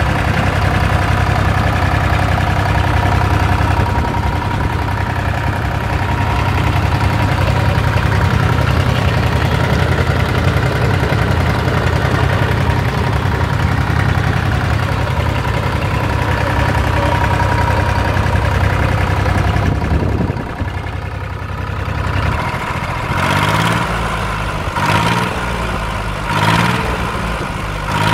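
Auxiliary diesel engine on a feed-tanker truck running steadily at a fast speed. About two-thirds of the way through it drops to a lower idle, then the throttle is blipped three times, each rev rising briefly and falling back.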